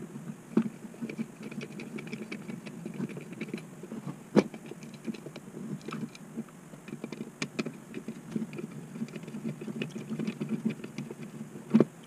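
Screws being turned in by hand with a screwdriver: a steady patter of small clicks and scrapes, with a sharper knock about four seconds in and another near the end.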